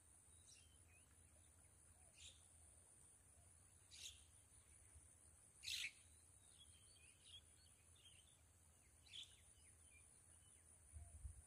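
Near silence, broken by about five faint, short bird chirps a second or two apart, over a steady faint high-pitched whine.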